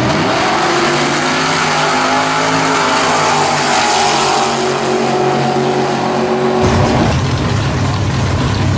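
Two drag-racing cars launching off the line and accelerating hard down the strip, the engine note climbing in pitch as they pull away. About two-thirds through, the sound cuts abruptly to a steady, lower engine running at idle.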